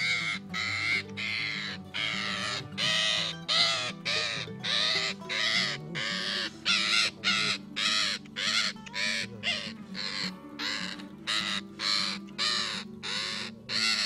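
A parakeet caught in a hand's grip screeching harshly over and over, about two calls a second: the distress calls of a trapped, handled bird. Background music plays softly underneath.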